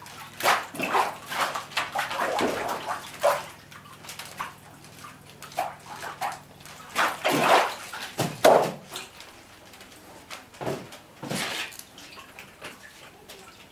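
Paper pulp slurry sloshing and splashing in a washi vat as a wooden papermaking mould (sugeta) is dipped and rocked back and forth. The water comes in uneven surges: a busy stretch over the first few seconds, a strong one a little after seven seconds in, and a shorter one near eleven seconds.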